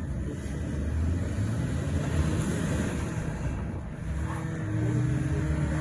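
SUV engines revving as the vehicles spin their wheels through snow. The engine note rises twice, about a second in and again near the end.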